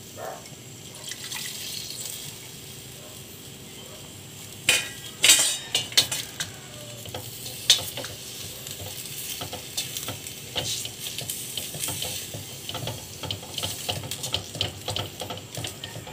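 Diced pork, potatoes and carrots sizzling in a stainless steel pot while a wooden spoon stirs and scrapes through them. Several sharp knocks against the metal pot come about five to eight seconds in, followed by steady small clicks of stirring.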